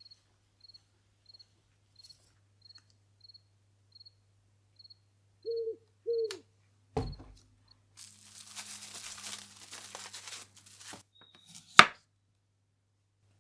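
Night ambience of a cricket chirping steadily, about three chirps every two seconds, with two low hoots a little before the middle. Then a thump, a few seconds of paper or packaging rustling and tearing, and a sharp click near the end, the loudest sound.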